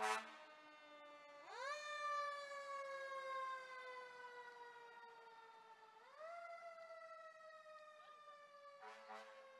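A fire truck siren winds up quickly, then falls slowly in pitch. It winds up a second time about six seconds in and falls again. A short fire truck horn blast comes right at the start, and another begins near the end.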